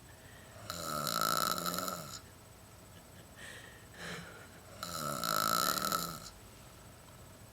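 Someone asleep snoring: two loud snores about four seconds apart, each lasting about a second and a half.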